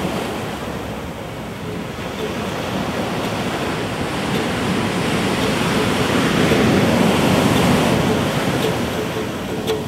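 Ocean surf washing onto a beach, a steady rush that swells louder about six to eight seconds in. A few ukulele notes come in near the end.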